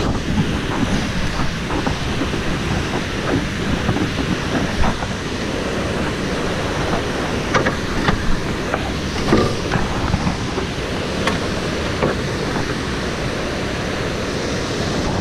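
Steady rushing of whitewater rapids, heavy in the low range, with a few short close knocks over the middle of the stretch.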